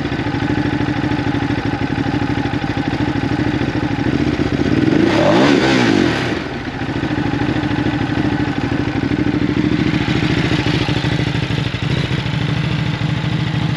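2018 Ducati Hypermotard 939's Testastretta 11° L-twin engine, fitted with a DanMoto slip-on exhaust, idling, with one quick rev about five seconds in that rises and falls back to idle.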